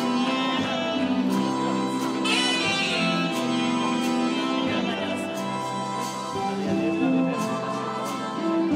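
Slow waltz music with long held melody notes.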